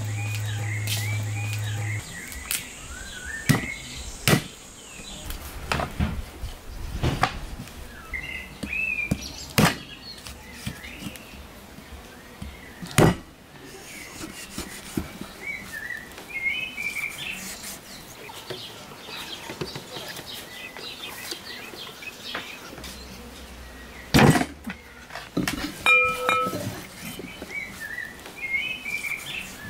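A cleaver and knife chopping raw lamb ribs on a wooden chopping block: sharp, irregular knocks of the blade going through the meat into the wood, a few of them much louder. Small birds chirp between the chops.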